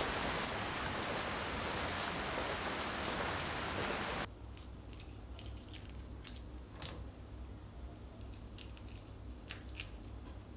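Steady rain, an even hiss, which cuts off about four seconds in. Then kitchen scissors trimming raw shrimp: a scattering of sharp, crisp snips.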